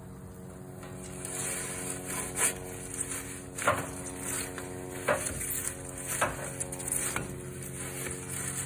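Metal pizza peel scraping across the cordierite stone floor of a wood-fired oven, in about five short strokes as the pizza is worked onto the peel and turned.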